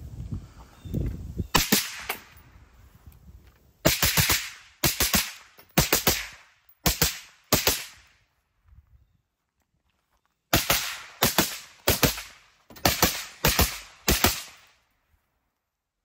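Suppressed rifle shots from an 11.5-inch AR-15 carbine in 5.56 fired through a DDC Enticer S suppressor, in semi-auto strings about a second apart. Each shot is a sharp crack with a short ringing tail. One string ends about eight seconds in, and after a pause of about two seconds another string follows.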